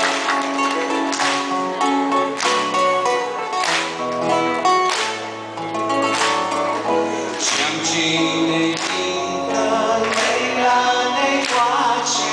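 Live song performance: a male singer with an acoustic guitar and a backing band with drums. The sung melody comes in over the accompaniment in the second half.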